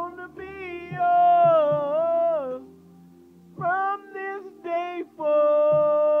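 A man singing an R&B love song over a backing track, in wordless runs: a long wavering note, a short pause, a few quick rising phrases, then a long steady held note.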